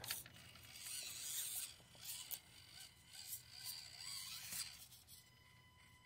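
Axial SCX24 micro crawler driving: the faint whir of its small electric motor and gear train, coming in several short spurts as the throttle is worked.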